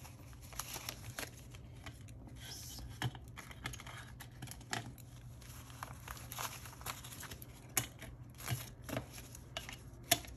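US dollar bills rustling and crinkling as they are flicked through and counted by hand, in short, irregular paper snaps.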